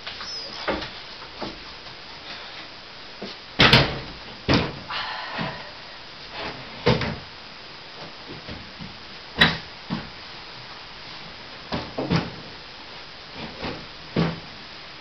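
A small cabinet knocking and bumping against a shelving unit as it is lifted onto the top and pushed into place. It makes a string of separate thuds and knocks, the loudest about four seconds in and again about nine seconds in, with a short scrape just after the first.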